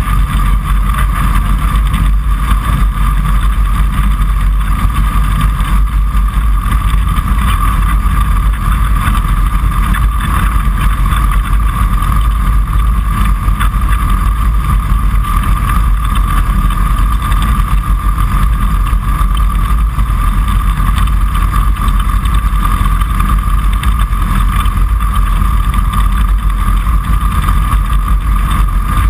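Kitfox Series 5 light aircraft's engine and propeller running steadily, heard from inside the cockpit: a loud, constant low rumble with a steady high-pitched whine on top.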